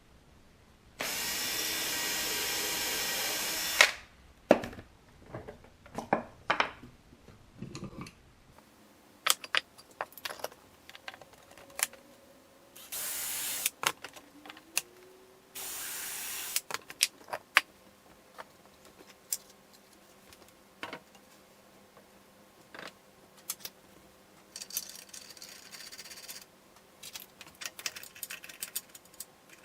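A power tool runs in short bursts: one of about three seconds near the start, two of about a second around the middle, and fainter brief runs near the end. Scattered knocks and clatter fall between the runs.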